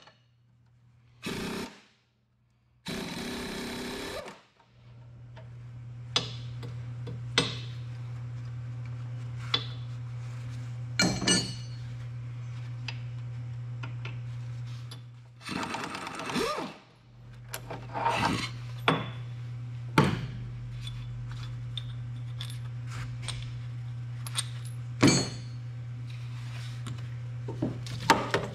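Steel wrenches clinking and knocking against a heavy truck's suspension bracket and bolts as the torque-rod bolts are worked loose by hand, in scattered sharp hits over a steady low hum.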